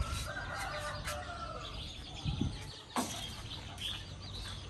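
Bantam chickens clucking, with a drawn-out call in the first second or two, then a sharp click about three seconds in.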